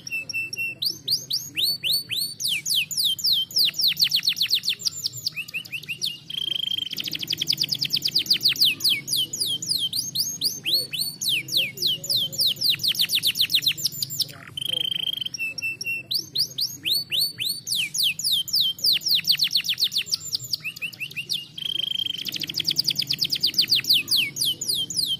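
Domestic canary singing: long, rapid trills of quick sweeping notes, broken several times by a short steady whistled note.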